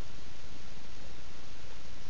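Steady, even hiss with no distinct sound standing out: no ticking, knocking or motor tone.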